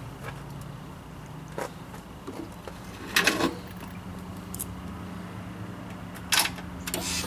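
Handling noises: a few short clatters and clicks, the loudest about three seconds in, over a steady low hum.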